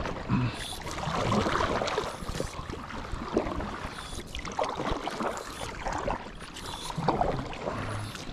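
Kayak paddle strokes: the paddle blades dipping and pulling through calm sea water, with repeated swishing splashes and water running along the plastic hull.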